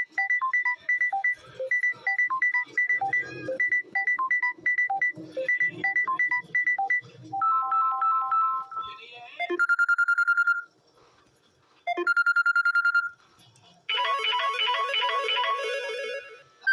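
Samsung Galaxy A14 stock ringtones played one after another. First comes a bright tune of short repeated notes, then a short pattern of three tones. Two bursts of rapid trilling beeps follow, and near the end another busier melody starts.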